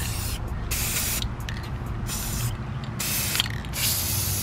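Aerosol spray-paint cans hissing in a quick run of short squirts onto a bin of water, about six bursts with brief gaps between them.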